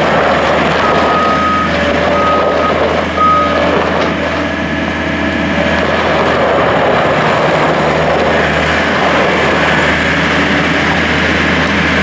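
John Deere 322 skid steer's 3.0 L five-cylinder turbo diesel running steadily as the machine drives across gravel, with its backup alarm beeping several times and stopping about three and a half seconds in.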